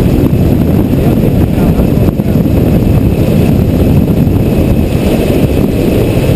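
A gyroplane in flight, heard through a helmet-mounted camera: a steady, loud, low rush of airflow and machine noise.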